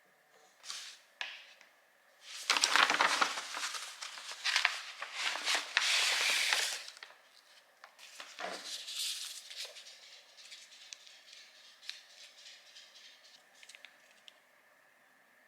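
Close handling noises: a run of loud crinkling, rustling bursts for a few seconds, then quieter scattered clicks and rustles.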